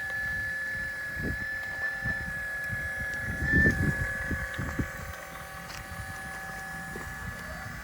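A 1/12-scale PC360 RC hydraulic excavator's brushless-driven hydraulic pump whining steadily at a high pitch, the tone wavering slightly as it takes load. Gusty low wind rumble on the microphone, with a brief louder rumble about three and a half seconds in.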